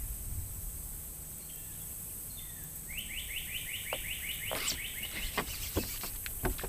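A bird's rapid trill of quick repeated falling notes, about ten a second, lasting a couple of seconds in the middle. Several sharp knocks follow near the end.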